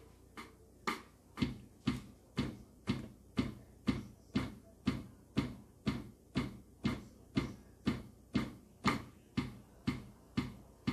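Alesis SR18 drum machine's click track ticking steadily at 120 beats per minute, about two clicks a second. Now and then a louder click marks the start of the pattern's next pass.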